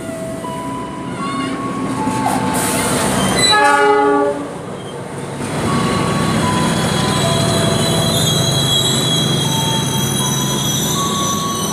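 KA Pangrango passenger train behind a CC 206 diesel-electric locomotive pulling into the station. A rising rumble leads to a short horn blast about four seconds in, the loudest moment. The coaches then roll past with the steel wheels squealing in several steady high tones.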